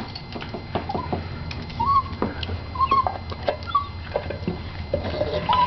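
Small black-and-tan dog whining excitedly in about five short, upward-bending squeaks, with scattered clicks and taps.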